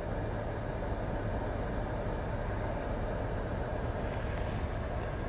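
Steady car cabin noise heard from inside the car: an even low hum with a broad hiss of engine, fan or road noise, and a faint rustle about four seconds in.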